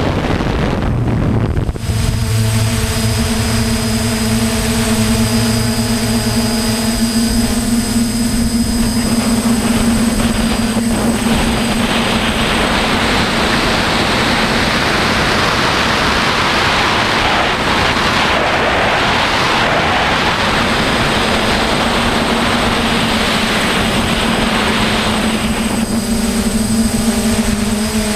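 DJI F550 hexacopter's six brushless motors and propellers running in flight, heard from the camera on board: a steady hum with a held tone. A broader rushing noise swells in about eleven seconds in and fades a couple of seconds before the end.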